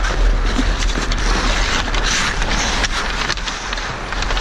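Hockey skate blades scraping the ice and low wind noise on a referee-worn camera's microphone as the referee skates. A few sharp clacks of sticks and puck come through over it.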